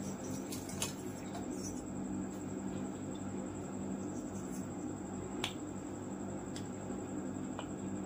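A steady low hum with a few light, sharp clicks and taps scattered through it.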